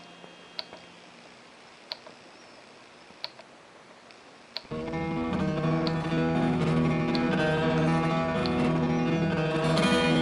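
Low temperature differential hot air (Stirling) engine running slowly, with a light tick about every 1.3 seconds. About halfway through, acoustic guitar music comes in and is the loudest thing, the ticks still faintly under it.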